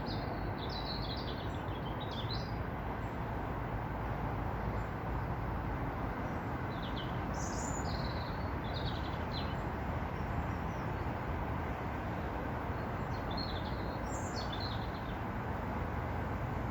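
A small bird singing three short bursts of quick chirps, near the start, about halfway and near the end, over a steady low background rumble.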